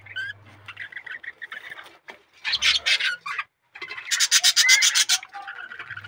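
Budgerigars chattering, with two loud bursts of harsh, rapid calls, one about two and a half seconds in and a longer one about four seconds in.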